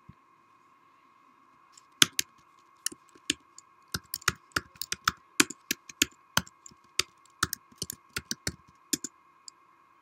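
Typing on a computer keyboard: a run of irregular key clicks starting about two seconds in and stopping shortly before the end, over a faint steady hum.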